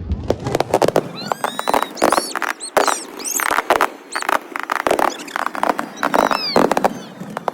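Fireworks going off close by: a dense run of sharp crackling pops mixed with many short, high squealing whistles.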